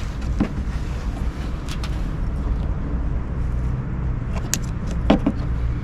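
Steady low engine rumble of a motor vehicle running, with a few light clicks and taps from parts being handled.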